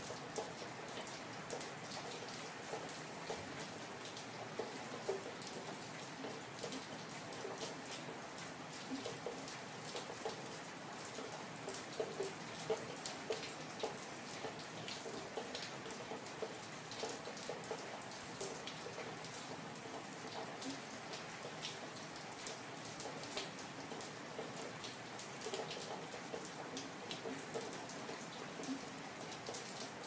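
Steady rain falling on an empty city street, with a constant hiss and many separate drops ticking and splashing on hard surfaces.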